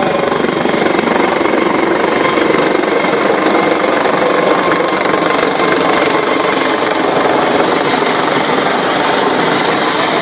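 Helicopter flying low overhead: a loud, steady rotor and engine noise.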